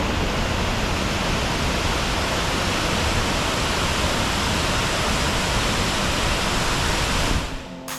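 Spring-fed waterfall pouring at its base: a steady, loud rush of water that fades away near the end.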